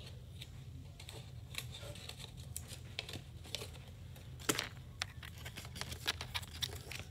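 Fan-folded craft paper rustling and crinkling as it is handled, with scattered light crackles and one sharper tick about four and a half seconds in.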